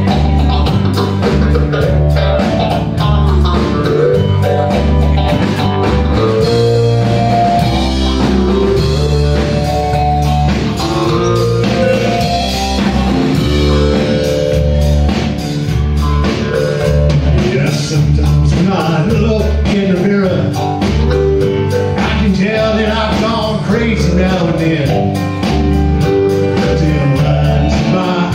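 Live band playing with electric guitars, bass and drums, and a steady beat throughout.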